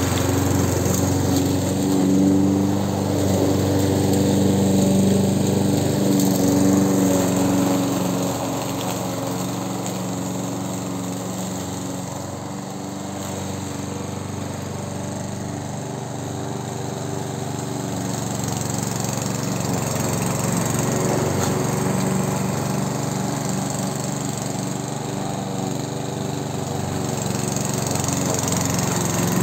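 Amber Line-B 4-in-1 petrol lawn mower running steadily while cutting grass. Its engine grows quieter in the middle as it is pushed away, then louder again as it comes back.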